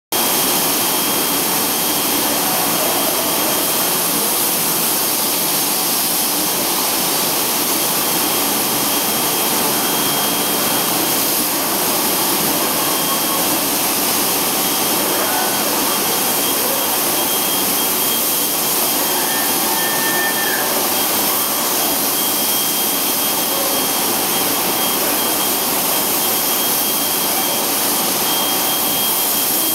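Steady, loud rushing hiss of a paint spray booth as a robot spray-paints a trailer body, with a thin high whistle running through it.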